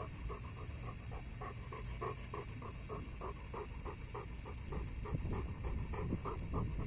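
Bernese mountain dog panting close to the microphone, a steady run of quick breaths at about three to four a second, over a low rumble.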